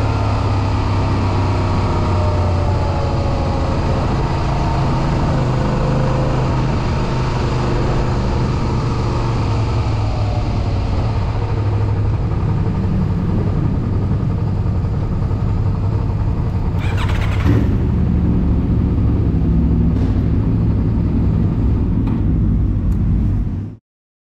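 Suzuki SV400S 90-degree V-twin engine running at low speed as the motorcycle rolls slowly, its pitch falling at first as it slows, then lifting a little under light throttle. A short thump partway through, and the sound cuts off suddenly near the end.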